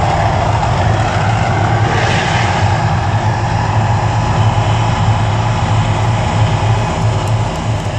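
Mirage volcano show erupting: a loud, continuous low rumble with rushing, roaring noise from the fire effects, a surge about two seconds in, easing off near the end as the flames die down.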